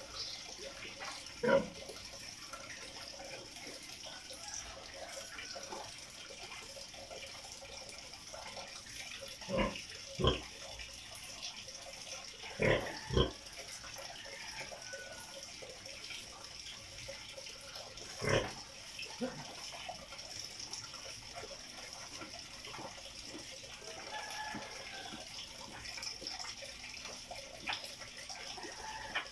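Resting sow giving about six short grunts scattered through the stretch, two of them in quick pairs, over a steady high hiss.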